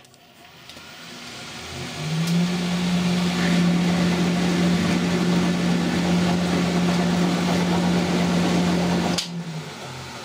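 An old Colchester lathe runs under power through a screw-cutting pass on a metric thread, its headstock and gearing giving a steady hum with one held tone. The sound builds over the first two seconds, and the spindle is stopped about nine seconds in and runs down.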